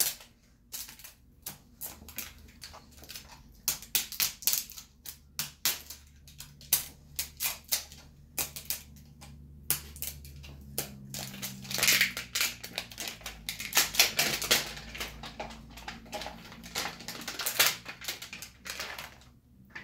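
Plastic wrapping of a toy surprise ball being peeled and torn open by hand: dense, irregular crinkling and crackling, thickest in the second half.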